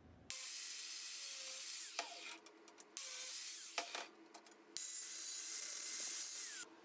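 Hissing scrubbing noise on a stainless steel wire-mesh grill grate, in three stretches of one to two seconds that start and stop abruptly, with a faint steady hum between them.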